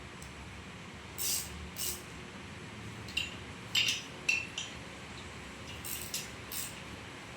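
A handful of short, light metallic clinks and scrapes at irregular intervals, from engine parts and tools being handled while the cylinder head is lifted off.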